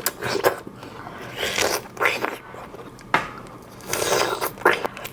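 Close-up biting and chewing of large, juicy strawberries: a string of separate wet bites and chews with short pauses between.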